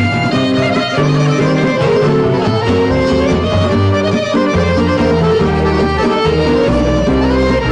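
Tamburica band playing an instrumental interlude of a slow folk love song, with plucked strings over a moving bass line and no singing.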